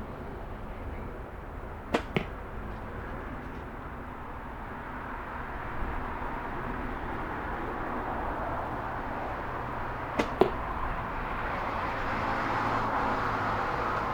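Two shots from a Kodiak Hunter recurve bow, about eight seconds apart. Each is a sharp snap of the string on release, followed about a fifth of a second later by the arrow striking the target. The bow has new cat-whisker string silencers and limb dampers fitted to cut noise and vibration.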